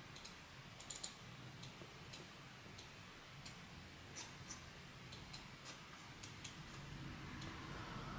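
Faint, irregular clicking of a computer mouse and keyboard, a few clicks a second, over a low steady hum.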